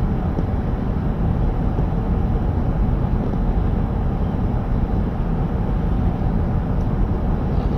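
Steady low rumble of a vehicle running at speed, even and unbroken throughout.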